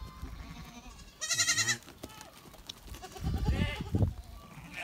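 Goats and sheep in a mixed flock bleating: one high, wavering bleat about a second in and a lower one about three seconds in.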